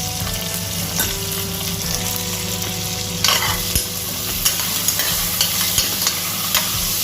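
Sliced onions, green chillies and curry leaves sizzling steadily in hot oil in a kadhai, while a spoon stirs them, scraping and clicking against the pan several times.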